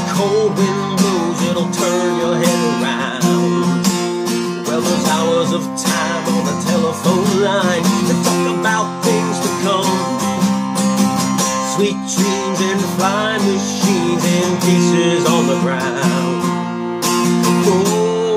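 Takamine steel-string acoustic guitar strummed in a steady rhythm, with a wordless vocal line wavering over it at times.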